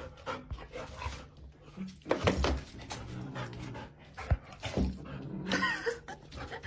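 Golden retriever panting, with a short high, wavering cry a little before the end.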